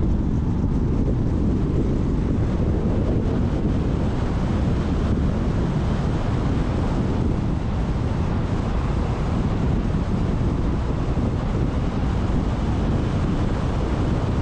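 Steady wind rumble on the microphone of a car driving at speed, with road noise underneath: an even, unbroken low rush.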